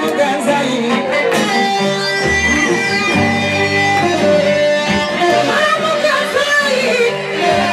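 Music with a plucked guitar playing melody lines over a steady bass line that moves in held notes.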